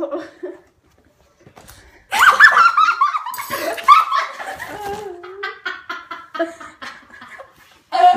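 Girls laughing hard: a loud, high burst of laughter breaks out about two seconds in and carries on in rhythmic peals.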